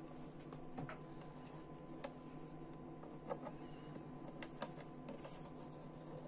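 Light clicks and taps of a plastic stand being handled and shifted on a wooden tabletop: a handful of scattered sharp ticks, two close together past the middle, over a steady low hum.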